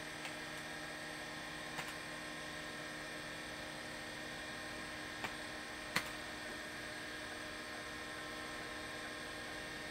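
Steady hum from the running test computer and its spinning hard drive, with three short keyboard clicks about two, five and six seconds in as keys are pressed to start the low-level format.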